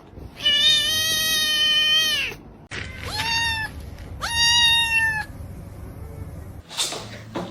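Domestic cat meowing three times: one long, drawn-out meow, then two shorter ones that rise at the start.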